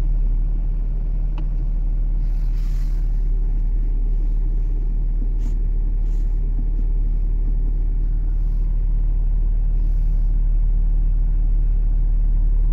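BMW M2's 3.0-litre twin-turbo straight-six idling steadily, heard from inside the cabin, with a soft click of a console button about halfway through.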